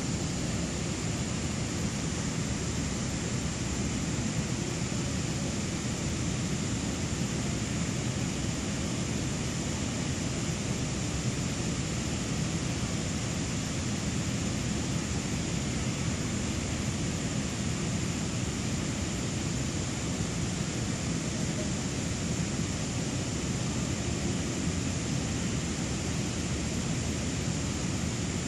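Steady, even background noise with no distinct events, heaviest in the low range, with a faint steady high-pitched tone running through it.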